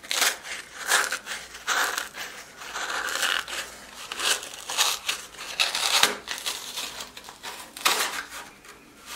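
Cardboard core crumpling and tearing as it is squeezed and twisted out of the centre of a roll of blue shop towels, in a run of irregular crinkling noises.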